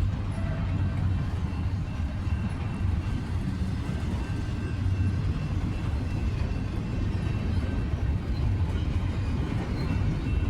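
A long Union Pacific freight train rolling past, its cars making a steady low rumble on the rails.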